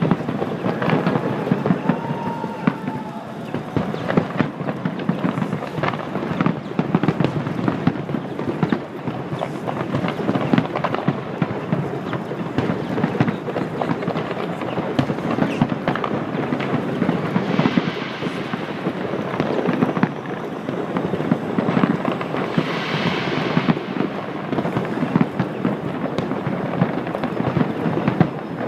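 A large fireworks display: a continuous barrage of rapid bangs and crackles. Two brief hissing surges stand out, about 18 and 23 seconds in.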